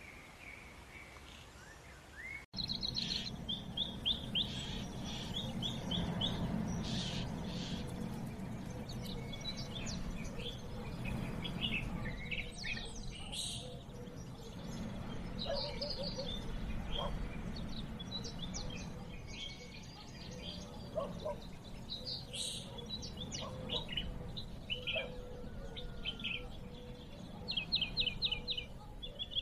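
Birds calling: rapid trills of short, high repeated notes and scattered chirps over a steady low background noise, starting abruptly a couple of seconds in.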